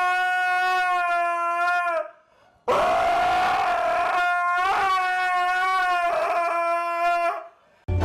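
Dog howling in long, drawn-out notes: one howl ends about two seconds in, then after a short pause a second long howl follows, breaking twice before it ends near the end.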